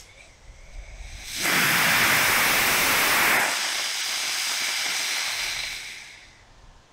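Fructose sugar rocket motor in a 3/4-inch PVC casing, with a 1/4-inch washer nozzle, firing on a thrust stand: a faint fizz as it lights, then about a second in a loud steady rushing hiss at full burn for about two seconds, easing somewhat and then dying away near the end as the motor tails off.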